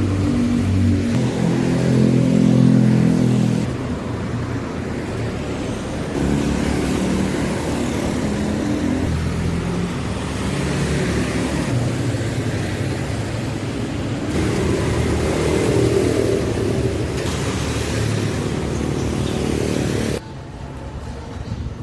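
Street traffic: engines of motor vehicles running and passing, with steady engine tones over road noise. The sound shifts abruptly every few seconds and drops sharply near the end.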